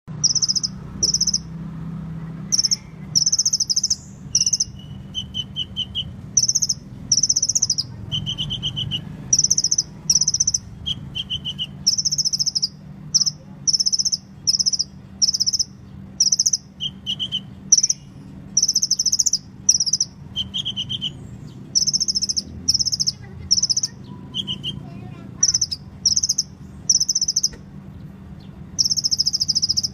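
Sunbird singing: short, high trilled chirps repeated about once a second, with an occasional lower trill, over a steady low hum.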